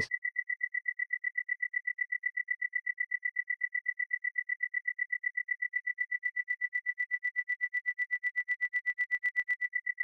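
Synthesized cricket chirp: a single sine wave near 2 kHz through a 36 Hz ring-mod filter, pulsing on and off several times a second. From about six seconds in it grows buzzier and rougher as the ring-mod resonance and drive are turned up, adding sidebands around the tone.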